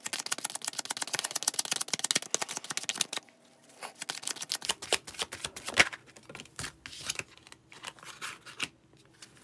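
A deck of paper Lenormand cards being overhand-shuffled by hand. For about three seconds there is a dense run of rapid card flicks. After that come sparser, scattered clicks and slaps as the shuffling slows and a card is drawn from the deck.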